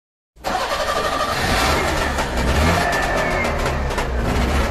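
A car engine running and revving, cutting in suddenly about half a second in and staying loud, with crackles in the exhaust note.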